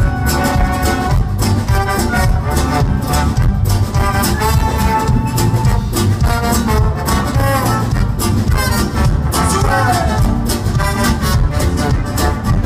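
Live band playing an upbeat instrumental passage with a steady beat: electric bass, drums, acoustic guitar, violin and trumpets.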